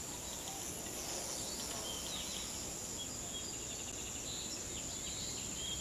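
Faint outdoor ambience: a steady high whine of insects with a few short, faint bird chirps scattered through it.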